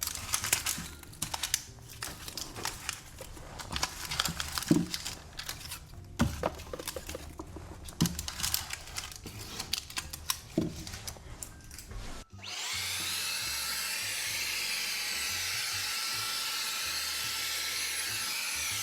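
Household items being handled and set down, with scattered clicks and knocks. About twelve seconds in, an abrupt cut to a loud, steady, high whirring noise that holds for several seconds.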